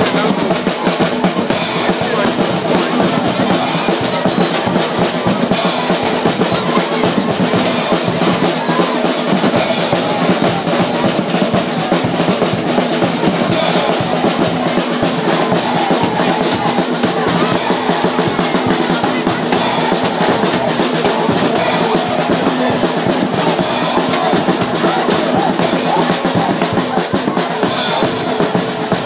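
Fast, dense drumming with music, loud and steady throughout.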